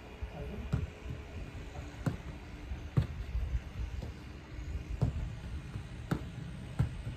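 A football being passed back and forth along a grass lawn: sharp, separate thuds of the ball being kicked with the inside of the foot and stopped, roughly one every second or so, over a steady low rumble.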